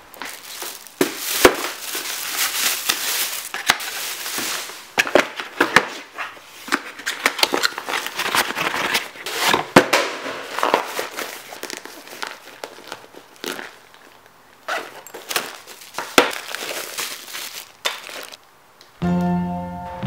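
Plastic shopping bag and packaging crinkling and rustling as they are handled and opened, with irregular sharp crackles and taps. Music begins about a second before the end.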